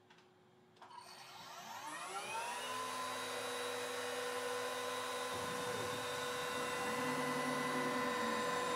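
CNC router spindle spinning up with a rising whine about a second in, then running steadily at speed with the end mill not yet in the cut, ready for the finishing pass.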